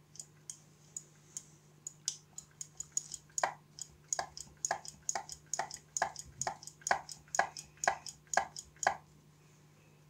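Volkswagen Golf 5 tailgate release button being pressed over and over, its plastic plunger and microswitch clicking about three times a second: the repaired plunger is working the switch again. The clicking stops about nine seconds in.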